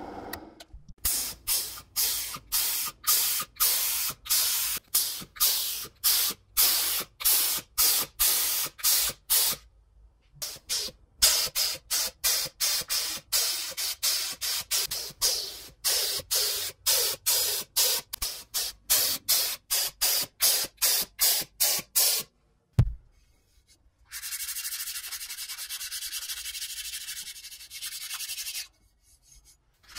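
Hand-held air spray gun fired in short hissing pulses, roughly two a second, spraying paint onto steel plates, with a brief pause near ten seconds. Near the end, a single sharp knock, then a steady scrubbing as a gloved hand rubs down a painted steel plate.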